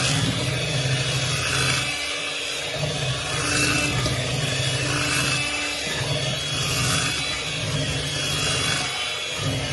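Electric mixer whipping cream until it thickens: a steady motor hum that dips briefly about every three to four seconds.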